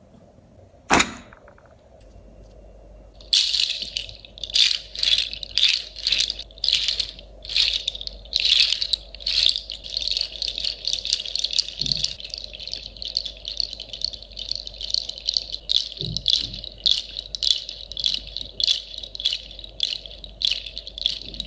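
Rattling shaken in separate strokes, about one or two a second, from about three seconds in, running together into a near-continuous rattle from about ten seconds in. A single sharp click comes about a second in.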